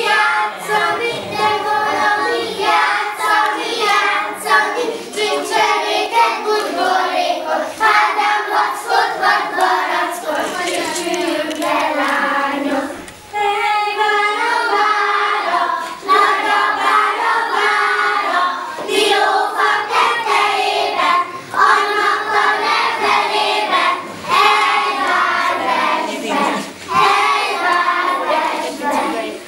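A group of young children singing a song together in unison as they dance a circle game, with a brief pause a little before halfway.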